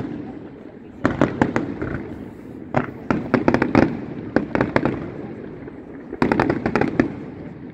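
Aerial fireworks shells bursting in four volleys of sharp bangs and crackles, each followed by a fading rumble.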